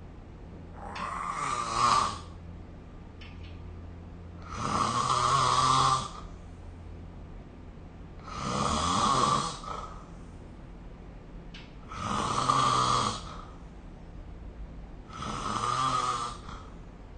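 A sleeping person snoring: five loud snores, each lasting about a second, coming roughly every three and a half seconds.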